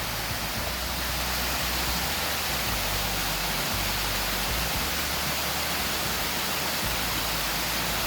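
Waterfall rushing steadily, an even unbroken hiss of falling water.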